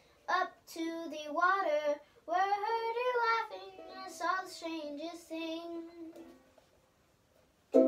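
A young girl singing unaccompanied, with some long held notes; the singing stops about six seconds in.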